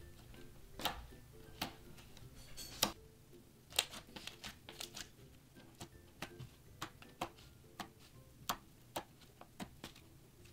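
Blue butter slime (slime mixed with soft clay) being pressed, squished and stretched by hand, giving irregular soft clicks and pops, a couple every second.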